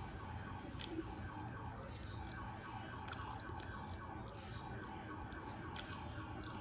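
Close-up chewing with a few sharp clicks from a plastic fork and plate, over a faint wavering siren-like wail in the background.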